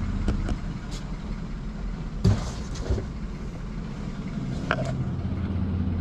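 A steady low engine hum, like a vehicle idling, with scattered knocks and clatters; the loudest is a sharp knock a little over two seconds in.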